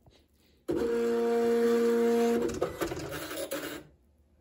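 An Apple ImageWriter II dot-matrix printer's mechanism starts suddenly and runs with a steady whine for about two seconds. It then rattles on in uneven clicks and stops shortly before the end.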